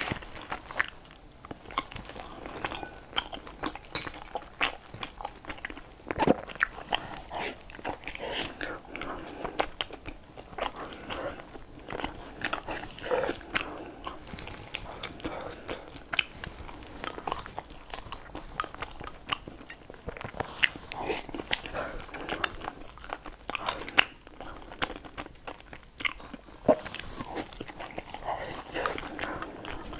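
A person chewing and biting food, with wet mouth sounds and many short clicks and smacks throughout.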